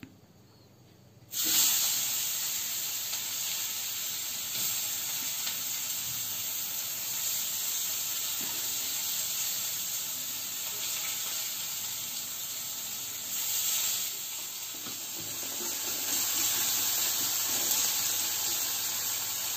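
Chopped onion hitting hot oil in a kadai: a sudden loud sizzle starts about a second in and goes on steadily as the onion fries.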